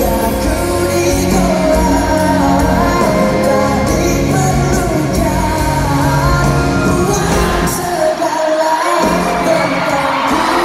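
Live pop ballad with a male lead vocal and band, played loud over an arena PA and heard from within the audience; the low end drops out for about a second near the end before the band comes back in.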